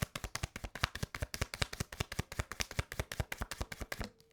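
Tarot cards being shuffled by hand: a rapid, even run of crisp card clicks, about ten a second, that stops about four seconds in.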